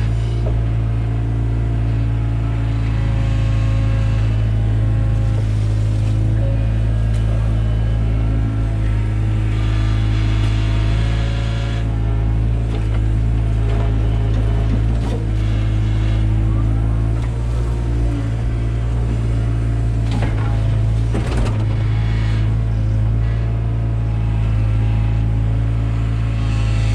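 Takeuchi TB175 excavator's diesel engine running steadily while it works the ditch, with a higher hydraulic sound that swells and fades as the arm and bucket move. There are a few sharp knocks, the clearest about 15 s and 20 s in.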